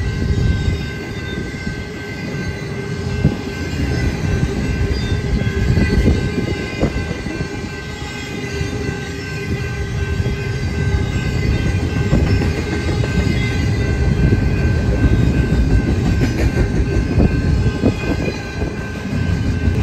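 Double-stack intermodal freight cars rolling past, a steady low rumble with wheels clacking over the rail joints. A steady high ringing tone runs underneath.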